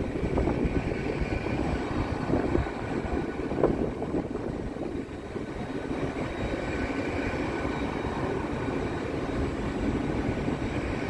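A TransPennine Express passenger train rolling along the platform, with steady wheel and running rumble and a faint high whine held over it. There is a brief knock about three and a half seconds in.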